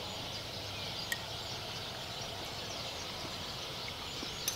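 Steady outdoor ambience of insects chirring, with a light clink of a fork against a bowl about a second in and again near the end.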